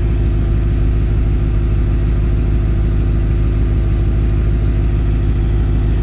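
Audi 4.2 V8 engine idling steadily, heard from beneath the car close to the exhaust, with the exhaust cut-off valve still closed.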